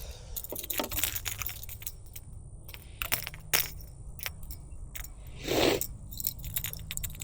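Scattered light clicks and jangles from a fishing lure, its hooks and line being handled, with one brief louder rub a little past halfway.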